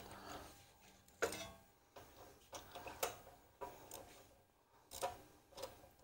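Several light, separate clicks and clinks of metal parts as a replacement carburetor and its throttle linkage are worked into place on a small engine, the sharpest about a second in.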